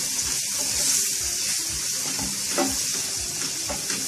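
Red chili and garlic chutney paste sizzling steadily in hot oil in a nonstick pan while a spatula stirs through it.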